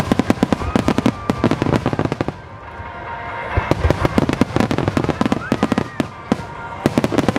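Aerial firework shells bursting in rapid volleys, a dense run of overlapping bangs and crackles that eases off about two and a half seconds in, then builds again.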